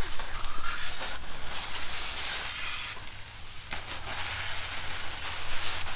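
Water spraying from a garden hose onto plants: a steady hissing spray whose strength rises and falls.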